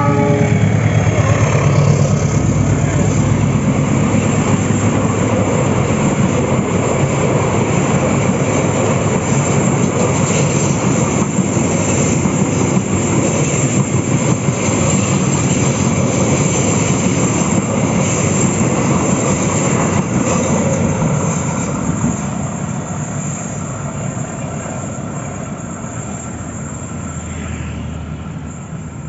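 Diesel-hauled passenger train running past at close range: the locomotive and a long rake of carriages give a dense, steady rumble of wheels on rail. About two-thirds of the way through the sound starts to fade steadily as the train draws away.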